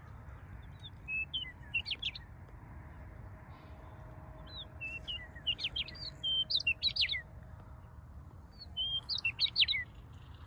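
A songbird singing in three short bursts of quick, high chirping notes, about a second in, around the middle, and near the end, over a steady low background noise.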